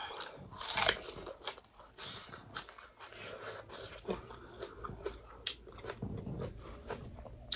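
Close-up chewing and biting of crisp fried fish, with irregular crunches and small mouth clicks, the loudest crunch about a second in.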